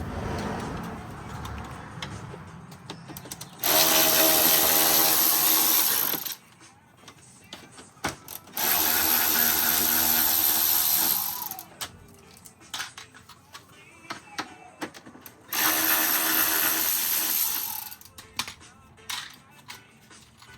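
Cordless power driver running in three bursts of about two and a half seconds each while backing out the grille's screws, with scattered clicks and rattles of tools and parts between the bursts.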